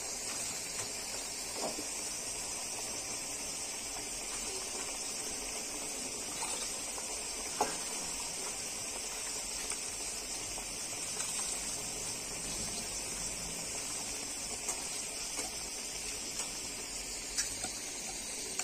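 Pot of rice parboiling in spiced water on a gas stove: a steady hiss of boiling with a few faint clicks and taps.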